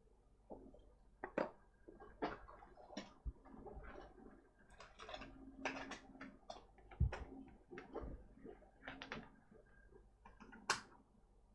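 Irregular light clicks, taps and scrapes of hands and tools handling a laptop mainboard on a workbench, over a faint hum.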